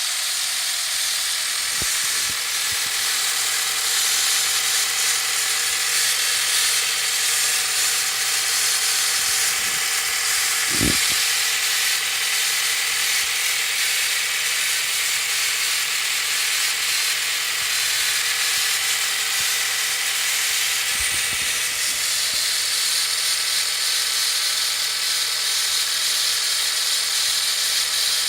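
Nissan Qashqai 2.0 engine running with a steady, high-pitched whirring, ratcheting mechanical noise. This is the strange engine noise whose cause the owner does not know. A few brief low knocks come through it, the clearest about a third of the way in.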